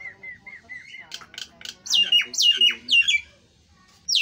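Caged myna calling: a quick run of short repeated chirps, then from about a second in a loud series of downward-sweeping whistles mixed with sharp clicking notes, stopping about three seconds in.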